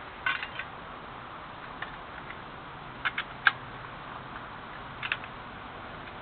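Bicycle chain clinking in a few short, scattered clicks as it is handled and put back onto the rear cog, the loudest about three and a half seconds in.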